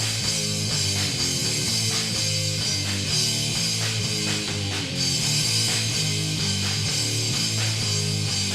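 Live rock band playing an instrumental passage: distorted electric guitar and bass holding chords over drums, with no singing.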